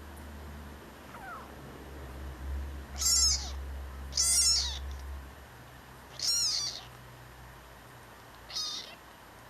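Tabby kitten meowing four times in high, thin calls, the last one short. A low hum runs under the first half.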